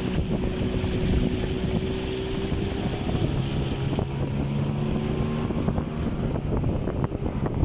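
A motorboat engine running steadily, its note shifting a little about three seconds in, with wind buffeting the microphone.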